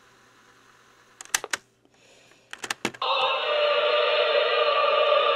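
Piano-key transport buttons of a small RCA portable cassette recorder clicking in two quick clusters, then about three seconds in the tape starts playing a recorded church service through the recorder's small built-in speaker: loud, tinny-sounding singing with no deep bass.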